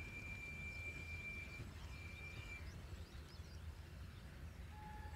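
Low, steady rumble of a long freight train of NMG wagons running away on the track. A thin high whistling tone is held for about a second and a half near the start and comes again briefly a little later, and a lower short tone sounds near the end.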